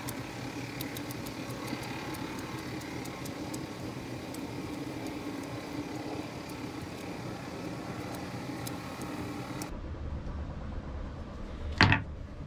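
Small scattered clicks and scrapes of a knife cutting a thin branch, over a steady background hum. Near the end comes one sharp knock as the knife is set down on a plywood board.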